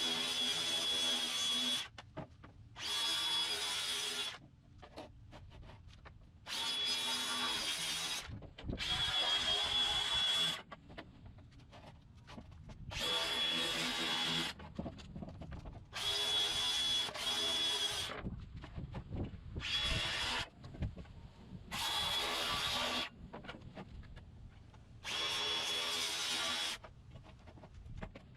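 Electric saw cutting plywood in about ten short bursts, each a second or two of steady motor whine with brief pauses between.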